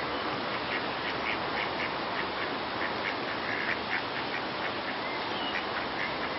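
Mallard ducks quacking in a quick run of short quacks over a steady background hiss.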